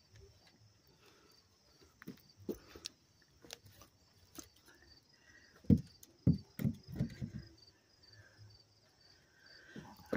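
Crickets chirping steadily in a high, pulsing trill. About six seconds in, a quick run of five or six loud thumps, with a few lighter clicks scattered earlier.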